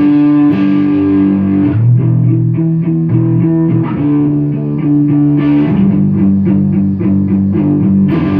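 Electric guitar played through a small lunchbox-style tube amp with mild overdrive: ringing chords, a run of quickly picked notes in the middle, then held chords again.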